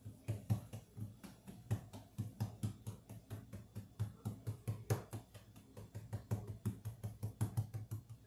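Hands patting and slapping soft buttermilk biscuit dough flat on a floured board on the counter: a rapid run of dull thumps, about three or four a second.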